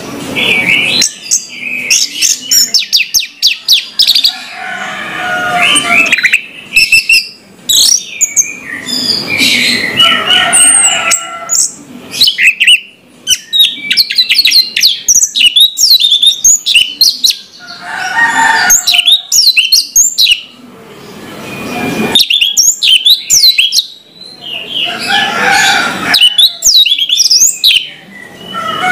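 Orange-headed thrush singing loud, full song: phrases of rapid, varied whistled and twittering notes a few seconds long, separated by short pauses.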